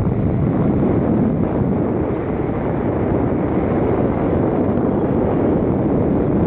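Steady wind rumbling on the microphone, a dense low noise with no distinct tones.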